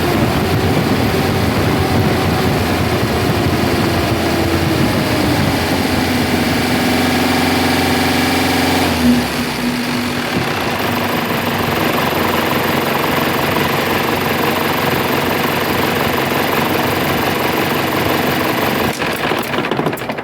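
An engine running steadily, its pitch sinking a little in the first few seconds; about nine seconds in the low rumble drops away and a lighter steady running sound carries on.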